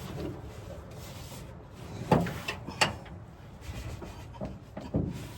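Knocks and thumps of someone climbing into a pickup truck's cab, with three sharp knocks about two, three and five seconds in.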